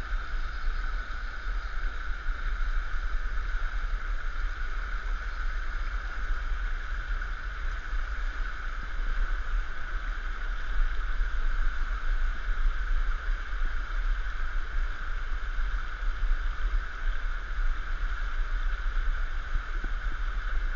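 Fast, shallow river current rushing and gurgling steadily over rocks, with a constant low rumble underneath.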